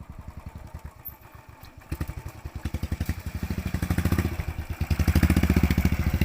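Motorcycle engine running with a rapid, even beat of firing pulses, getting louder about two seconds in and again near the end.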